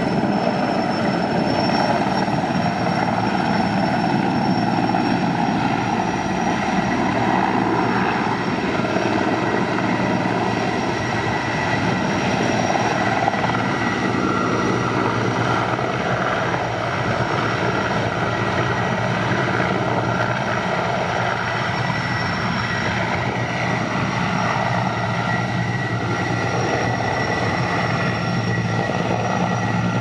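Sikorsky S-64E Air-Crane helicopter hovering low while refilling through its snorkel from a portable water tank: loud, steady rotor and turbine noise with a constant high whine.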